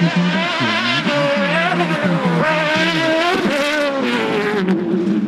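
Mini-bodied off-road racing car's engine revving hard as it is driven over a dirt course and a jump, its pitch rising and falling repeatedly with the throttle.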